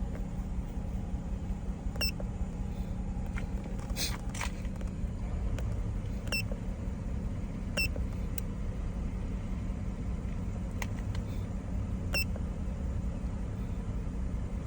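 2011 Lincoln MKZ's 3.5 L V6 idling with a steady low rumble; the idle is still rough, with fuel trim problems after a replacement ECM. Four short beeps and a few clicks from a handheld scan tool being worked sound over it.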